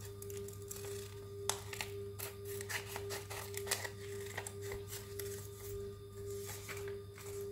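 Scissors snipping through thin paper in a series of irregular cuts, the sharpest about one and a half seconds in and again near the middle, over a steady, slightly pulsing hum.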